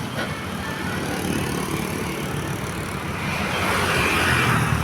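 Road traffic noise: the engine rumble and tyre noise of passing vehicles, swelling louder as one goes by about three seconds in.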